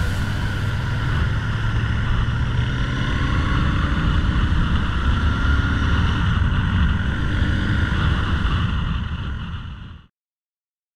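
Royal Enfield Interceptor 650's parallel-twin engine running steadily at cruising speed, heard from the rider's seat with wind and road noise over it. It fades and cuts off near the end.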